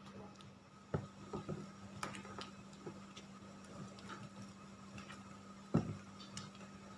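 Scattered light knocks and clicks of items being handled in a kitchen, with two louder thumps, one about a second in and one near the end, over a steady hum.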